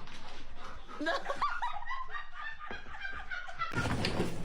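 Quiet snickering and laughter in short bouts, then an abrupt change to steady background noise with a low hum near the end.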